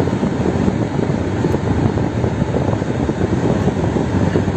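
A vehicle driving on a snow-covered mountain road, heard from inside the cabin: steady engine and tyre noise.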